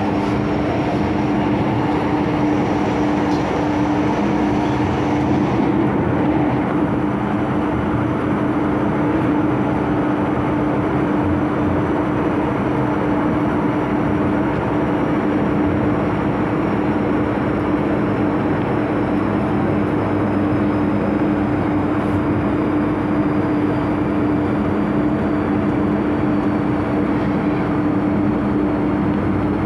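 MTR Island Line M-Train electric metro train running between stations, heard from inside the car: a continuous rumble of wheels on rail with a steady electrical hum. The high hiss eases off about six seconds in.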